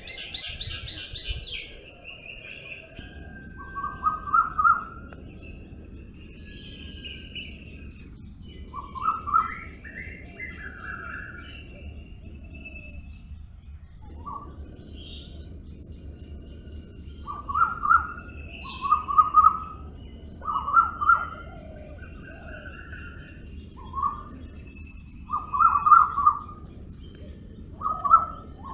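Birds chirping: short clusters of quick notes repeat every second or two, with scattered higher calls between them, over a steady outdoor hiss.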